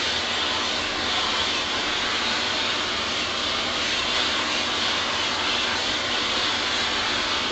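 Handheld vacuum cleaner running steadily, a constant hissing rush of air, as its nozzle is stroked over a cat's fur.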